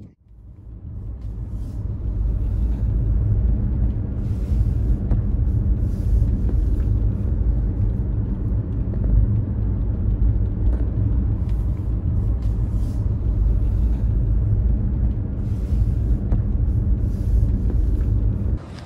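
A car driving, a steady low road rumble that fades in over the first couple of seconds and cuts off suddenly near the end.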